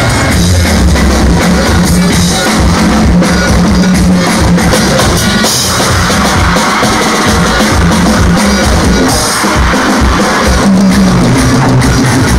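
Loud music with a steady, driving drum-kit beat and heavy bass.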